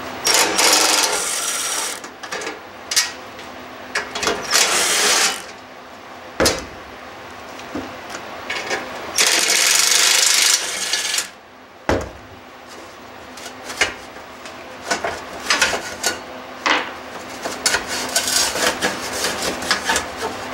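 A cordless drill with a socket spinning bolts out of a lawn tractor's exhaust shield in three short runs, the longest about two seconds. Between the runs come clicks and clanks of hand tools and loose sheet metal, with one sharp knock a little past halfway.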